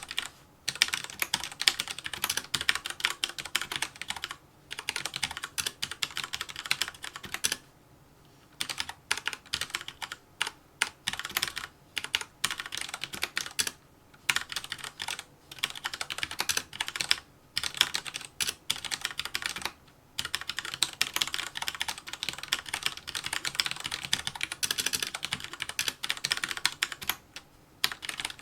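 Fast touch typing on a mechanical keyboard with red (linear) switches: rapid runs of key strokes broken by short pauses of about half a second to a second.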